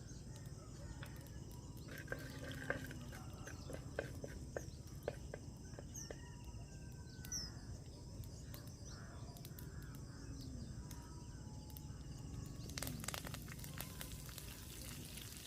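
Mustard seeds and dal crackling faintly in hot sesame oil as scattered sharp pops, with birds chirping and a low steady hum behind. Near the end a louder sizzle starts as curry leaves go into the oil.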